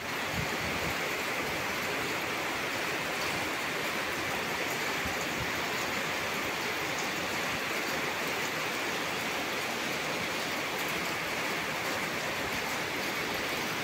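Heavy rain falling steadily, an even hiss that holds one level throughout.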